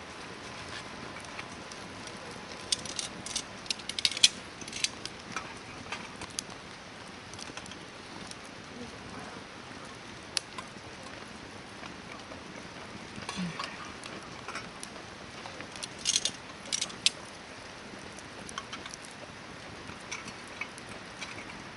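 Hardwood campfire burning with a steady hiss and irregular crackles and sharp pops, the loudest pops coming in clusters about four seconds in and again around sixteen seconds.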